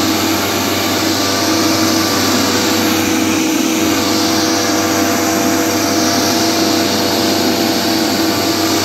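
Solo backpack mist blower's two-stroke engine running steadily at an even pitch, with the rush of air from its fan blowing spray mist out through the nozzle.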